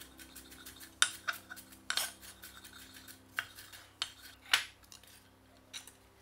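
Chef's knife striking a wooden cutting board while dicing onion: about half a dozen sharp, irregularly spaced knocks, the loudest about a second in and about two-thirds of the way through, tailing off to lighter taps near the end.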